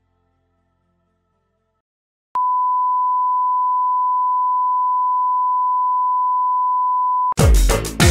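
A steady, single-pitched television test-pattern tone that starts with a click after a couple of seconds of near silence, holds for about five seconds and cuts off abruptly. Music with a heavy drum beat starts near the end.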